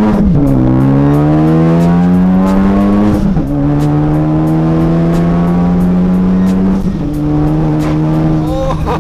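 Ford Focus ST's turbocharged 2.0-litre four-cylinder, breathing through a straight-piped MBRP turboback exhaust, pulling hard under full throttle. It runs loud, and its pitch climbs steadily through each gear, with three quick upshifts: near the start, a little past three seconds and near seven seconds.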